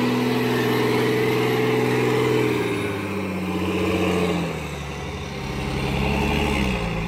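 Heavy truck engine labouring under load, its pitch dropping a few seconds in and picking up again near the end.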